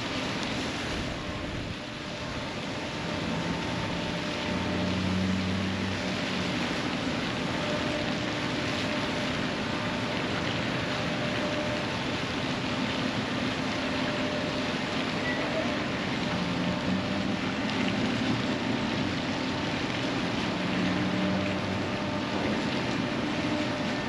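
The engine of a large bulk carrier passing close at slow speed: a steady low hum under an even rush of wind and water.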